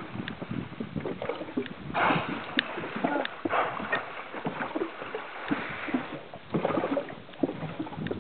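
Water lapping and splashing irregularly against the hull of a small boat drifting with no engine running, some splashes louder than others.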